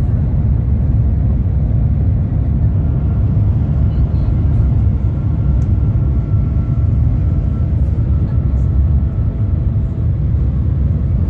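Steady low rumble of a Shanghai Transrapid maglev train at high speed, heard inside the passenger cabin, with a faint steady whine above it.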